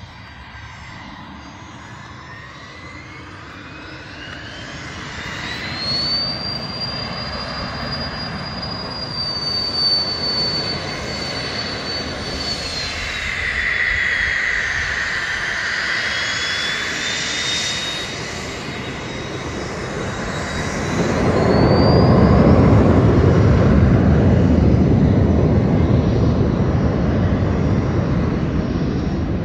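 Cirrus SF50 Vision Jet's single Williams FJ33 turbofan with a high whine that rises, holds, dips and climbs again. About two-thirds of the way in a loud low roar joins it as the engine is run up to takeoff power, and it stays loud to the end.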